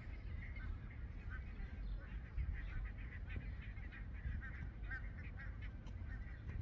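Geese honking over and over, many short calls overlapping, over a steady low rumble.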